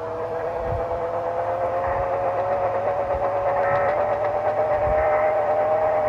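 Sangean HD radio's speaker tuned to 1140 on the AM band, putting out a steady two-note whistle that slowly rises in pitch, with faint crackle underneath.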